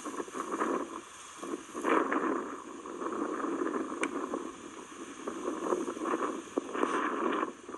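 Wind gusting across the microphone: a rushing noise that swells and eases, loudest about two seconds in and again near the end.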